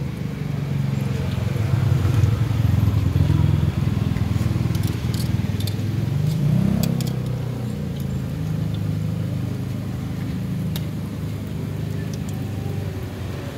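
Motor traffic running close by on the street: a low engine rumble that swells as a vehicle passes about six to seven seconds in. Scattered light clicks and crackles sit over it.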